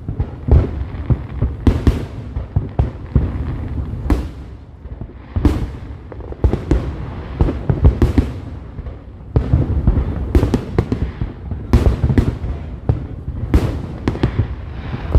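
Fireworks display: a dense barrage of bangs and crackling bursts, several every second, with a short lull about a third of the way through.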